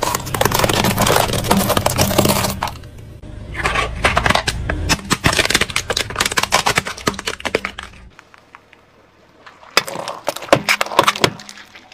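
Things crushed under a car tyre: dense crackling, cracking and snapping of plastic and other crunchy objects breaking, in three bursts with short quieter gaps between them.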